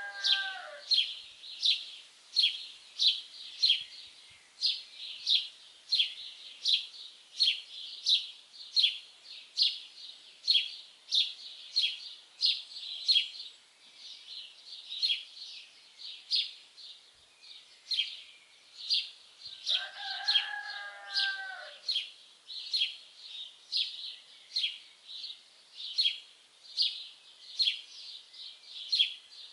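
A small songbird chirping over and over, about two short high chirps a second, with a rooster crowing twice: one crow ending about a second in, another about twenty seconds in.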